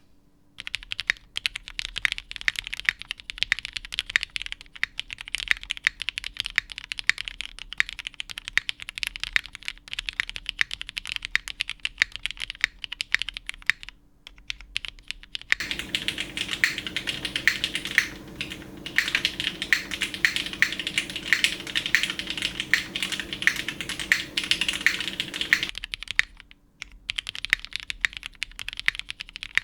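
Steady fast typing on a plateless DK1 60 custom mechanical keyboard with vintage Cherry MX Black linear switches on 60 g springs and GMK keycaps: a dense run of clacking keystrokes. The typing breaks off briefly about halfway through and again near the end.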